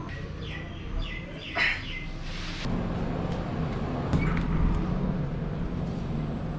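Steady low drone of a diesel construction machine (a JCB backhoe loader working on the road), growing louder about two and a half seconds in. A few bird chirps come in the first two seconds.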